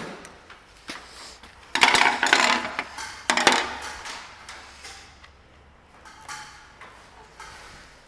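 Wrench clinking and scraping against metal as the mower battery's negative terminal is undone, with two louder stretches of rattling about two and three and a half seconds in, and scattered lighter clicks.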